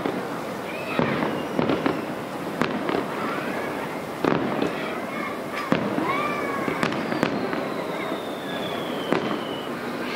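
Aerial fireworks shells bursting: about a dozen sharp bangs, roughly one a second, with crackling between them. A thin whistle slides slowly down in pitch over the last few seconds.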